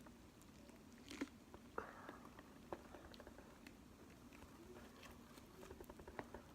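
Slime being pressed by hand: faint, scattered sticky clicks and crackles, with a few sharper pops.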